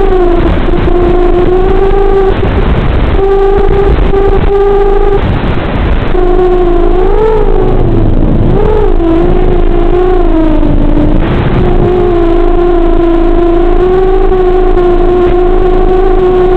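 Electric motor and propeller of a small FPV aircraft in flight: a steady buzzing whine with overtones. It briefly gives way to a rushing noise twice in the first few seconds, its pitch wavers up and down a few times around the middle, and it rises slightly near the end.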